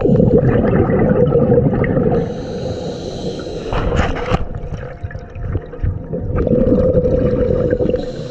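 Underwater sound of a scuba diver breathing through a regulator: two loud bubbling rushes of exhaled air, one at the start and one near the end, with a quieter hiss between.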